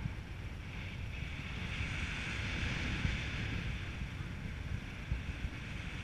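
Airflow buffeting the microphone of a paraglider in flight: a steady low rumble with a hiss higher up.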